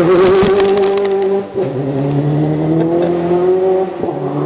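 Car engine revving hard and held at high revs, with a brief drop in pitch about one and a half seconds in, like a gear change, before it holds and climbs slowly again.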